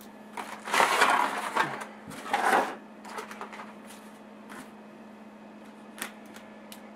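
Clear plastic clamshell packaging crinkling and crackling as it is handled and opened, in a burst about a second long and then a shorter one. A few faint taps follow, with a sharper one near the end as a graphics card is set down on anti-static foam, over a faint steady hum.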